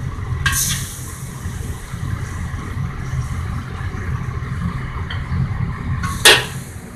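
Steady low rumble from the wok stove, with a metal spatula scraping against the carbon-steel wok about half a second in as wings are scooped out. Near the end a single sharp metal clank, the loudest sound.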